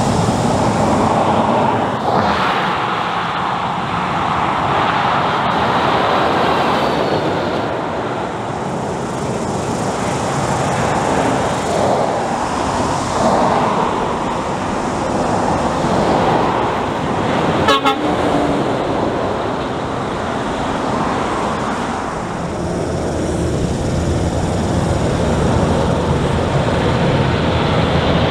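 Heavy diesel trucks driving past on a highway, engine and tyre noise swelling and easing as each one goes by, with a short clatter about 18 seconds in.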